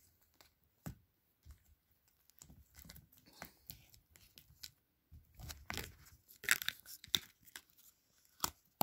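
Fingers pinching and pulling a piece of sticky orange slime out of its plastic tub: scattered short crackles and pops, densest and loudest a little past the middle, with a sharp click near the end.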